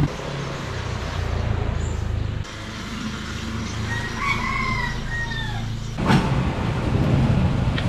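A rooster crows once, a single long call that falls in pitch at the end, over a low steady rumble.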